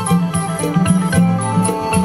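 Traditional Thai folk music accompanying the Fawn Phu Tai dance: sustained low pitched tones over a quick, even beat with bright high metallic hits.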